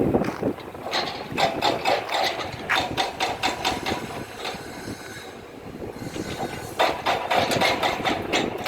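Demolition work: a dense run of irregular knocks, clatter and scraping, easing off for a couple of seconds in the middle before picking up again.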